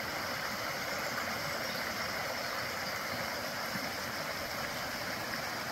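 Steady rushing of a stream tumbling over a series of small cascades, an even water noise that holds at one level.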